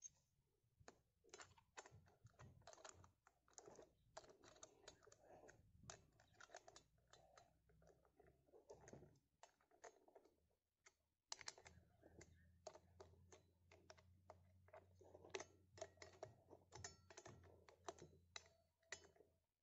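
Faint, irregular clicks and taps of small metal parts being handled by hand as the bar cover and nut of a chainsaw attachment are fitted and tightened.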